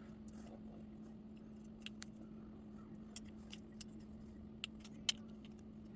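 Faint, scattered small metal clicks and taps, about eight of them, as the hinge pin is worked out of a small-engine carburetor float with hand tools. A faint steady hum sits underneath.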